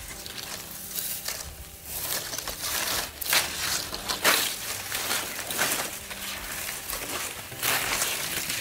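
Dry grass and brush rustling and crackling as it is pulled and gathered by hand, in irregular bursts, loudest about halfway through and again near the end.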